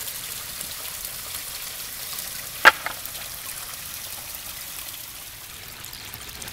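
Water running and trickling over the rocks of a backyard pond's stream and waterfall, a steady hiss. A single sharp click cuts through it a little past halfway.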